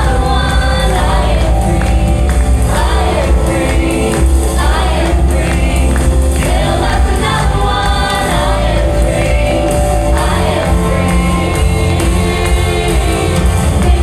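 Live gospel praise music: a band with a heavy, steady bass under sung vocal lines, with choir-like backing voices.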